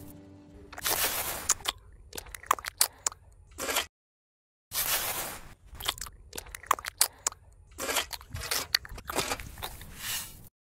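Miniature trowel spreading wet cement mortar along the edge of a plastic sheet: irregular crunchy scraping and wet squishing strokes with small clicks, cut by a short total silence about four seconds in.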